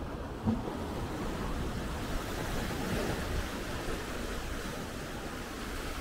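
Sea waves washing onto the beach, with wind on the microphone and a brief thump about half a second in.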